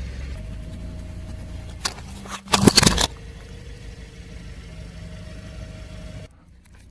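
A car engine runs low and steady while the car rolls over objects. About two and a half seconds in comes a short, loud crunch of something breaking under a tyre. The sound cuts off abruptly near the end.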